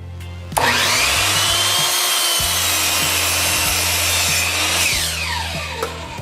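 WEN 10-inch sliding compound miter saw with a 15-amp motor starting up with a rising whine about half a second in. Its carbide-tipped blade cuts through a pressure-treated 4x4 at steady full speed, then the motor winds down with a falling whine near the end.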